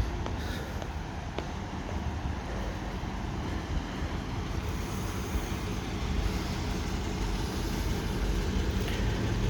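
Steady low rumble of vehicle traffic noise.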